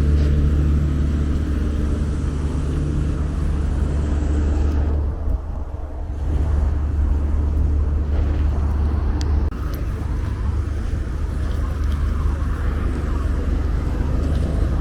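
Steady low rumble of motor vehicles on the road, with traffic noise; it dips briefly about five seconds in.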